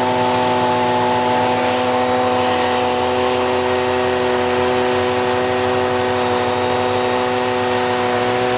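Gas-powered handheld leaf blower running at a steady, unchanging speed.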